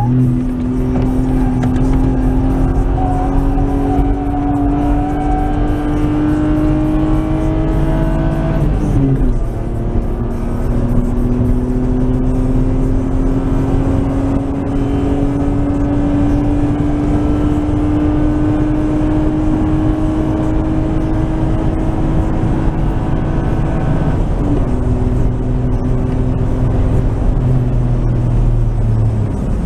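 Nissan Skyline R33's RB20E 2.0-litre SOHC straight-six pulling under throttle, heard from inside the cabin: the engine note climbs steadily, drops sharply at a gear change about nine seconds in, then climbs slowly for a long stretch in the higher gear before the driver lifts off near the end.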